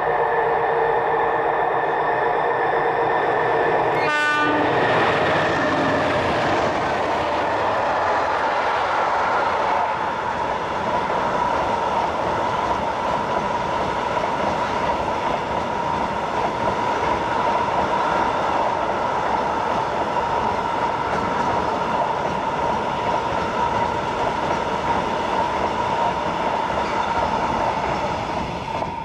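MLW diesel locomotives hauling a container freight train pass close by with their engines running. About four seconds in the sound changes sharply as the locomotives go past, and a long string of container wagons then rolls by with a steady high ring and clatter. It fades near the end as the train's tail moves away.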